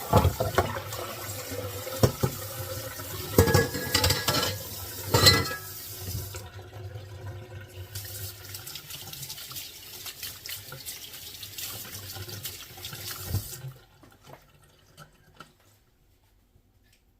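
Cold water running from a kitchen tap into a sink while fresh butter is washed and squeezed by hand to rinse out the buttermilk. There are a few sharper, louder sounds in the first six seconds, and the tap shuts off about fourteen seconds in.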